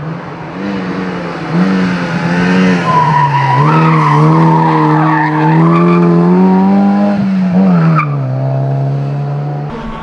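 Race car engine pulling hard uphill and passing close, its revs climbing and dropping back twice as it shifts up. A brief tyre squeal comes about three seconds in.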